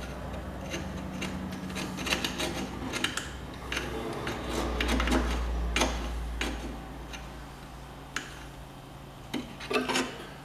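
Hand tools scraping, rubbing and clicking against metal as crumbled old rubber is picked out of a lawn tractor's engine mount. Irregular scrapes and taps run over a low steady hum, thickest in the middle and with a short cluster of clicks near the end.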